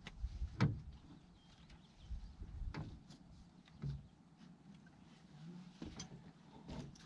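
Scattered knocks and thumps on a fishing boat's deck and hull, about five over several seconds, as people shift about at the bow with a fish held in the landing net.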